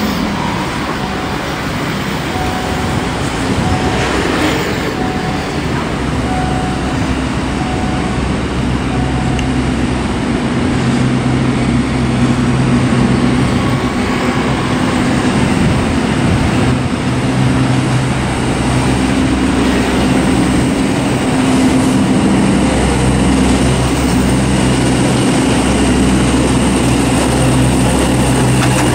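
Diesel locomotive's engine running with a steady low drone as it approaches hauling a passenger train, growing gradually louder as it comes near.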